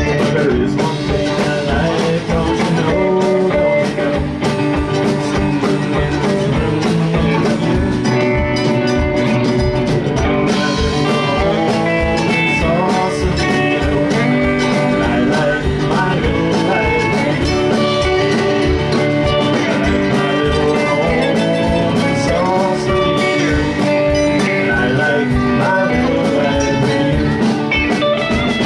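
Live band playing a blues-rock tune: guitar over a steady drum beat.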